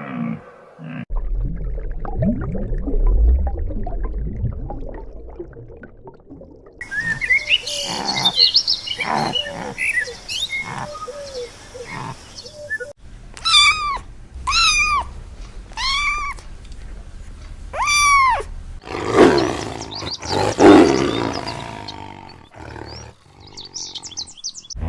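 A string of different animal calls, one clip after another, with roar-like calls among them. In the middle come five rising-and-falling calls, evenly spaced about a second apart.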